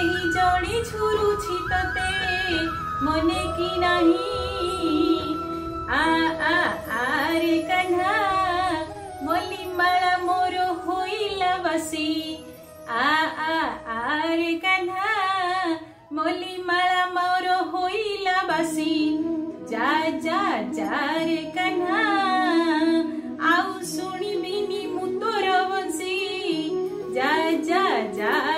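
Instrumental interlude of a devotional bhajan with a held melody line, then a woman's solo voice singing the bhajan over the accompaniment from about six seconds in.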